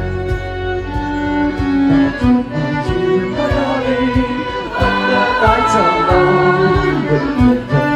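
Live folk band music: a fiddle playing the melody over accordion and strummed guitar and bouzouki, with a steady strummed beat.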